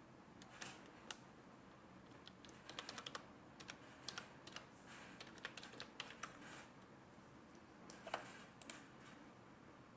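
Faint typing on a computer keyboard: irregular runs of keystrokes as a password is entered, with a few louder clicks near the end.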